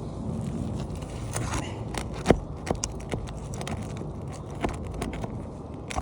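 Roofing tools working at overdriven nails in asphalt shingles: scattered sharp metal clicks and light scrapes, the loudest about two seconds in, over a steady low rumble.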